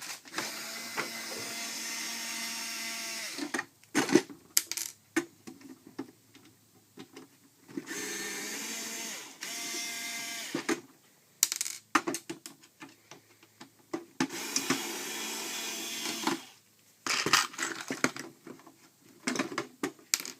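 Cordless power screwdriver whirring in three short runs as screws are driven out of the plastic housing, each run winding down at its end, with clicks and knocks of parts being handled in between.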